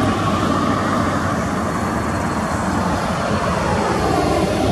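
A KiwiRail diesel locomotive's engine runs steadily as the locomotive rolls slowly along the track, its engine note dipping and rising.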